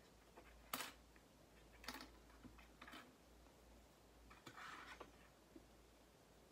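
Near silence of a small room, broken by three faint sharp clicks about a second apart, then a brief soft rustle about four and a half seconds in.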